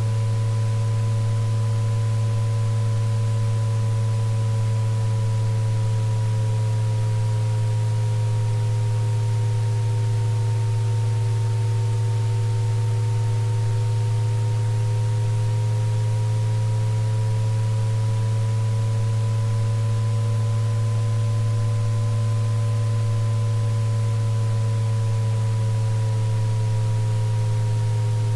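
Synthesized sound-therapy tones for tinnitus relief. A loud, steady low tone lies under several fainter higher tones that slowly drift up and down in pitch, over a faint hiss.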